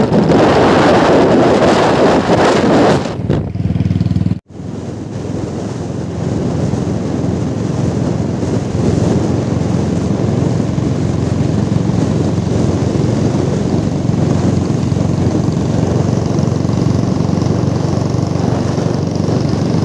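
Wind buffeting the microphone on a moving motorcycle, then, after a sudden break about four seconds in, the steady engine and road noise of motorcycles riding along a highway.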